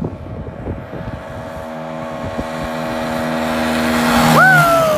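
Yamaha Badger 80cc ATV's single-cylinder four-stroke engine held at full throttle in top gear, growing steadily louder as it approaches, then dropping in pitch as it passes close by near the end.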